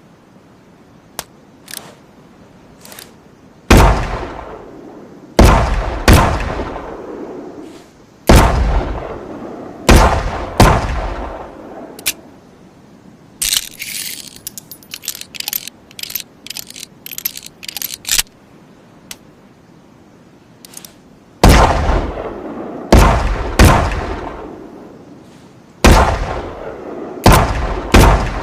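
Revolver firing two strings of six shots, each shot sharp and loud with a long echoing tail. A few faint clicks come before the first shot. Between the two strings there is a spell of quick metallic clicking and rattling.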